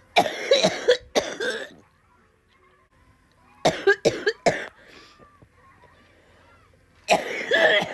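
Coughing in three fits of several harsh coughs each: one just after the start, one in the middle and one near the end.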